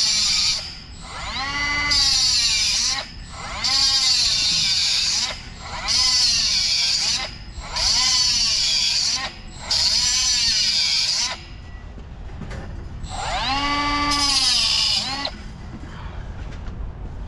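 Angle grinder cutting and grinding the edges of a metal window guard in repeated short bursts. The motor whine rises and falls with each trigger pull, and a longer pause comes before the last burst.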